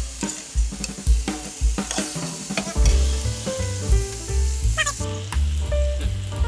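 Chicken leg quarters sizzling in hot oil in a frying pan, a steady hiss that thins near the end. Under it runs background music with a steady deep beat.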